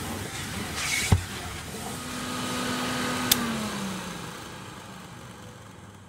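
Vintage Nilfisk GA70 canister vacuum cleaner running with a hiss of suction, with a knock about a second in. It is switched off with a sharp click a little past halfway, and its motor winds down, the hum falling in pitch and fading.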